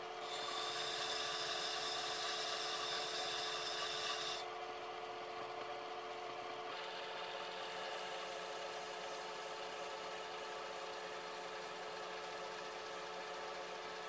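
Electric disc sharpener running with a steady hum while an old Disston chisel's steel bevel rubs against the spinning abrasive disc. The grinding turns a little quieter and duller about four seconds in.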